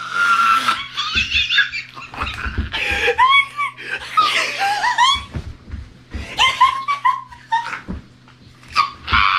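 A person shrieking and laughing in an excited fit, in loud high-pitched bursts with squealing rises and falls in pitch.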